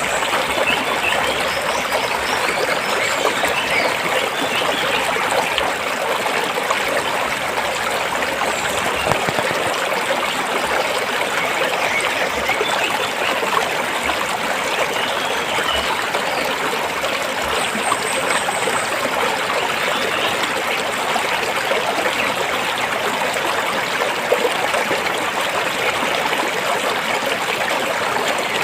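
Stream water running and trickling over rocks: a steady, even rush without pauses.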